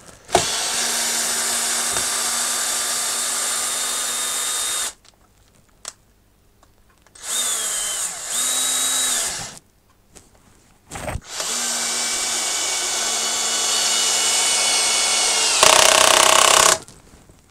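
Cordless drill-driver (non-impact) driving a large cross-head screw into wood, with its clutch set to 15. The motor whirs steadily in three runs; the short middle one dips in speed and picks up again. Near the end a louder, rougher burst lasts about a second as the screw seats.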